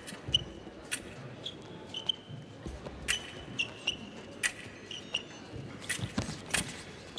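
Foil fencing bout: steel foil blades tapping and clashing, each contact a sharp click with a brief high metallic ring, mixed with the stamps of the fencers' footwork on the piste, about one or two hits a second.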